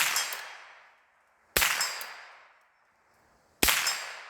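Three shots from an AR-15 rifle, about two seconds apart, each followed by an echo fading over about a second.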